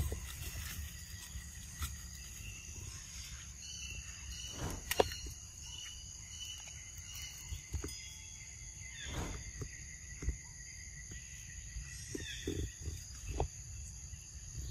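Steady high-pitched chorus of insects in outdoor woodland ambience, with a low rumble underneath. A few faint knocks and a brief rustle about nine seconds in.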